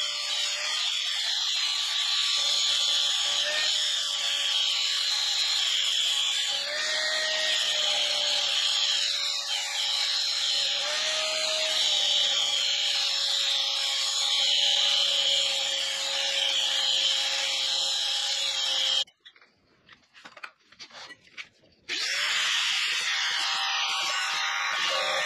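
Angle grinder cutting through a metal rod: a steady motor whine over a harsh grinding hiss, the pitch wavering as the wheel bites and eases. It stops suddenly about three-quarters of the way through, then spins back up a few seconds later and keeps cutting.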